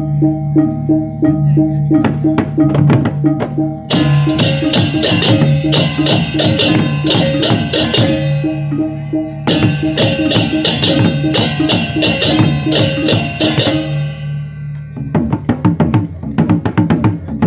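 Balinese baleganjur gamelan playing: drums and gongs keep a steady beat, and about four seconds in the cengceng kopyak hand cymbals come in with rapid interlocking clashes. The cymbals drop out briefly near the end, then come back in.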